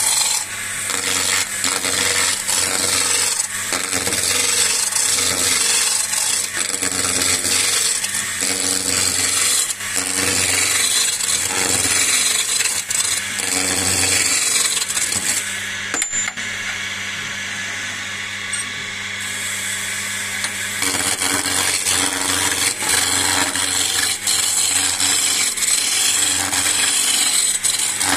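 Wood lathe running while a skew chisel cuts a spinning walking-stick blank: a steady hiss and rasp of shavings peeling off over the low hum of the lathe motor. For a few seconds past the middle the cutting eases off and mostly the motor's hum is left, then the cut resumes.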